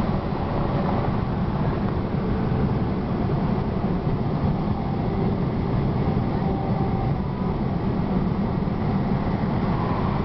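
Steady road and engine noise of a car driving on a highway, heard from inside the cabin, with a low rumble and no break.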